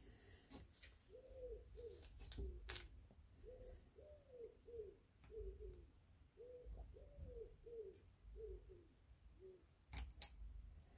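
A pigeon cooing faintly in the background, in three phrases of about five low coos each, the second coo of each phrase the longest. Light clicks of a steel Allen key against a motorcycle brake master cylinder's metal body come at the start and twice near the end, the last two the loudest sounds.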